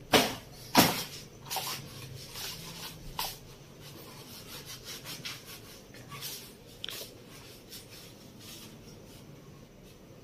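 A thin plastic bag snapped twice in the first second as it is shaken out, then crinkling and rustling as it is handled, with a few sharper crackles.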